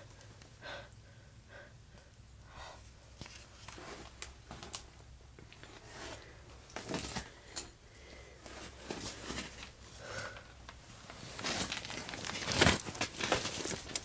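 Footsteps crunching on snow and ice, with rustling from the camera being handled. The crunches are sparse at first and come thicker and louder in the last few seconds.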